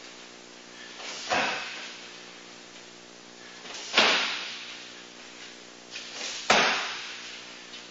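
Three hard shin kicks slamming into a large kick shield, about two and a half seconds apart, each impact with a short ringing tail.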